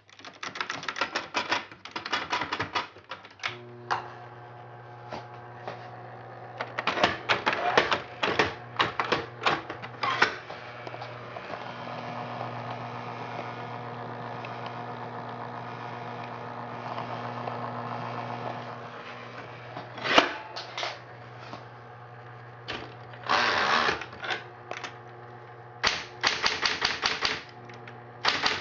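Smith Corona Electric 12 electric typewriter being typed on: bursts of rapid keystroke clacks over the steady hum of its running motor, with pauses between the bursts where only the hum is heard.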